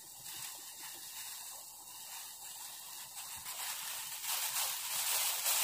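Steady hiss of a pan of water and spices heating on a gas stove, growing louder toward the end.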